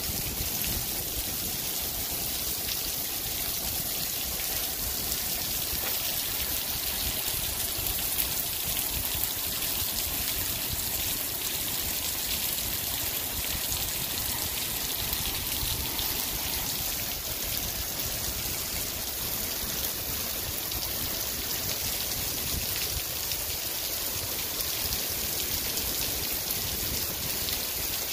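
Heavy rain falling in a steady hiss, with runoff streaming and dripping off the edge of a roof overhang.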